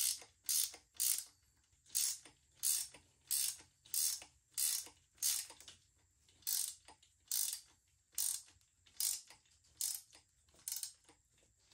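Ratcheting wrench tightening the axle nut of an e-bike's rear hub motor: the ratchet clicks in short strokes, about three every two seconds, stopping in the last second.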